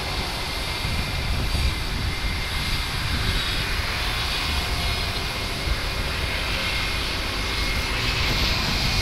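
Jet airliner engines running steadily across the airfield: a continuous low rumble with a faint steady high whine.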